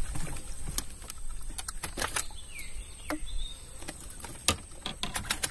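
Scattered clicks and knocks from fishing tackle being handled in a wooden boat, with one sharper knock about four and a half seconds in. A short downward-sliding whistle sounds about two and a half seconds in.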